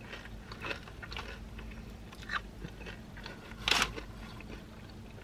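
Close-up chewing of tortilla chips, with scattered small crunches and one louder crackle about three and a half seconds in.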